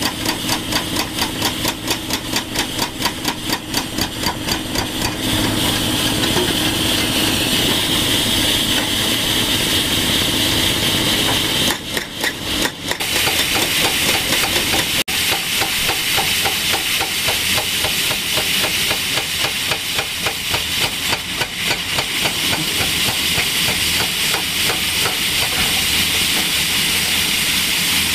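Excavator-mounted rock saw, its large circular blade grinding through wet rock while the excavator runs. For the first few seconds it pulses rapidly, then it settles into a steadier hissing grind.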